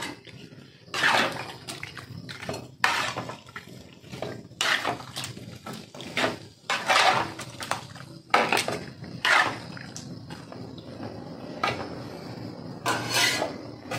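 Metal spoon stirring and scraping in an aluminium wok through coconut-milk sauce, in about ten irregular strokes a second or so apart.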